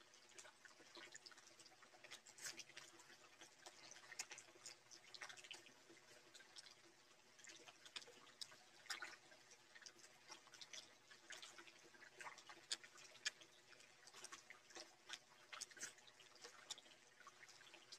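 Faint, irregular wet clicks and smacks of someone eating rice and fish curry by hand: fingers squishing the food on a banana leaf and the mouth chewing.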